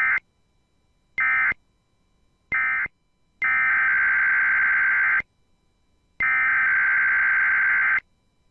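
Emergency Alert System SAME digital data bursts, modem-like tones switching on and off: three short end-of-message bursts about a second apart, then, about three seconds in, the first two of three longer header bursts announcing a required weekly test.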